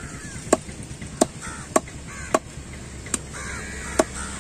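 A knife chopping fish on a wooden chopping block: six sharp knocks, roughly every two-thirds of a second. Bird calls come between the strikes.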